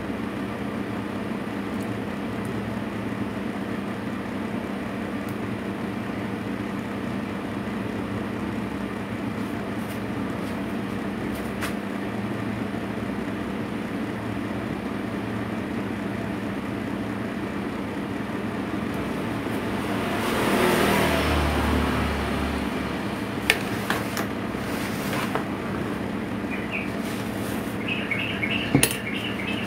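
Steady low background hum, swelling for a couple of seconds about two-thirds of the way through as a vehicle passes, then a few sharp clinks of a metal spoon on a steel baking tray near the end.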